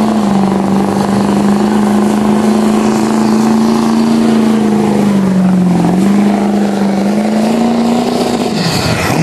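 A pulling truck's engine held at high revs under full load as it drags the weight sled. The pitch stays steady, sags briefly about halfway through, and falls away near the end.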